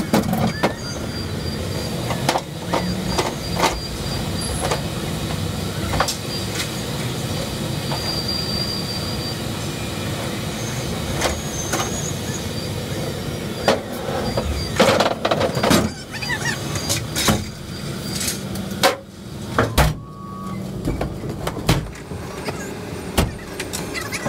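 Forklift unloading pallets from the back of a cargo van: its motor runs steadily while the forks and load clank and knock against the van's metal floor, with a cluster of knocks a little past the middle.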